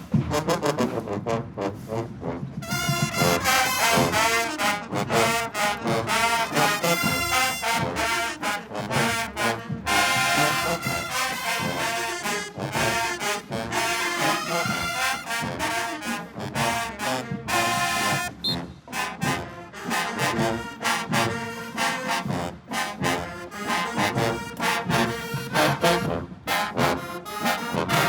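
Marching band playing, with trombones and trumpets carrying the tune over sharp, regular drum hits.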